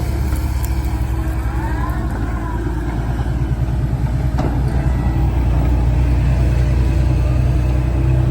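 Komatsu PC130 hydraulic excavator's diesel engine running with a heavy, steady rumble that grows louder through the second half. A faint whine rises and falls about two seconds in, and there is a single knock a little after four seconds.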